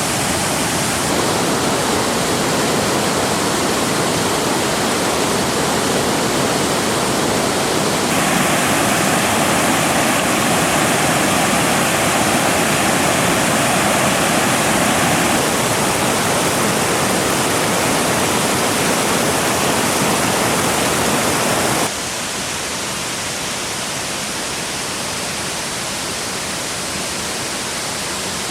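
Rushing water of a large multi-tiered waterfall, a steady dense hiss. Its tone changes abruptly a few times, and it gets noticeably quieter about three-quarters of the way through.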